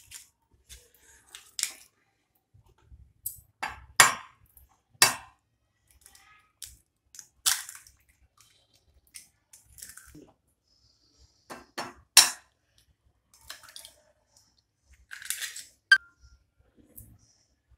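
Eggs tapped on the rim of a glass bowl to crack them: a series of sharp clicks of shell on glass, several seconds apart, with softer sounds of the shells being pulled apart between them.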